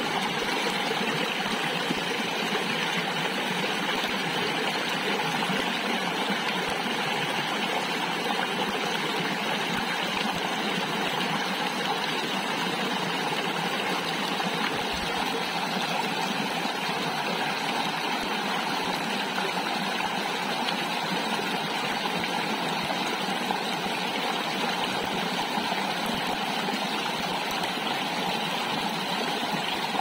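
Shallow rocky stream running over stones in small rapids: a steady, even rush of water.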